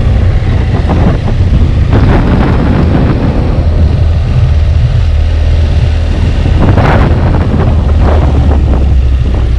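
Motorcycle engine running at low speed under a steady low rumble, with wind buffeting the microphone and swelling in gusts a couple of times.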